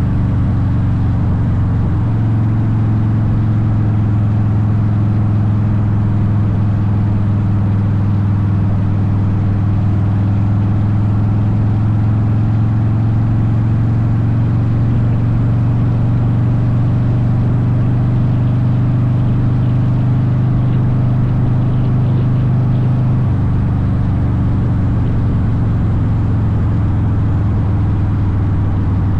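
Harley-Davidson Softail Deuce V-twin with Vance & Hines exhaust running at a steady cruise. Its exhaust note steps up about two seconds in and settles to a lower, steady pitch in the last several seconds.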